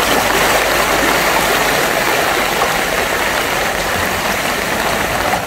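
Steady rushing of water in rainy, flooded conditions, with a low rumble underneath.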